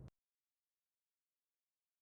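Silence: faint room noise cuts off abruptly just after the start, then nothing.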